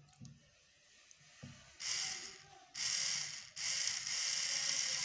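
Small plastic DC gear motor of a toy tractor running on a 6-volt battery, with a high buzz. A few soft knocks come first as the wires are handled. The motor then starts and cuts out twice as the wire touches the battery terminal, and runs steadily from about three and a half seconds in.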